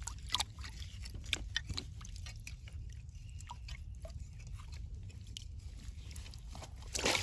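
Wet mud and shallow water at a mangrove crab burrow, crackling with many small scattered clicks and pops. A short splash of water comes near the end.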